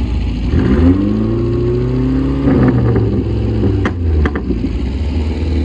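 Four-cylinder car engine accelerating hard, its pitch rising for about two seconds and then holding steady, with a few sharp clicks about four seconds in.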